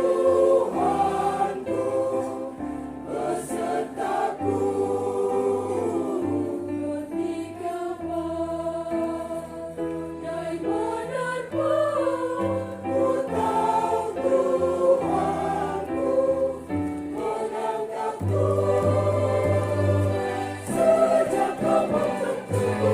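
Church choir singing in parts, with held low bass notes underneath that change every second or two.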